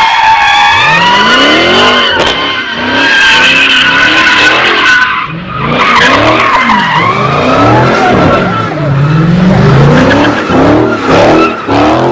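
A car doing donuts: its tyres screech in a long, wavering squeal while the engine revs up and down again and again. The screech dies away briefly about five seconds in, then picks up again.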